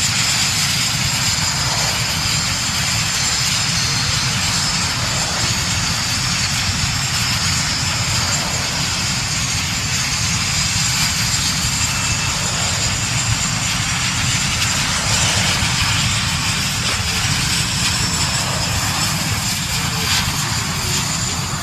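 Several BAE Hawk T1 jets' Adour turbofan engines running at taxi power: a steady, loud jet whine with a high whistle over a low rush.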